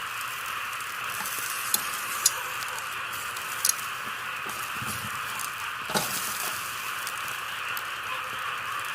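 Sparrows splashing in a shallow water bath: a few sharp splashes about two, three and six seconds in, over a steady hiss.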